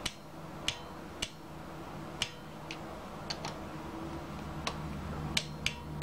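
Ratchet of a Tekton click-type torque wrench clicking on a bolt in the soft aluminium engine case, as the bolt is tightened to 70 inch-pounds. About ten sharp metallic clicks, unevenly spaced, roughly one a second or a little faster.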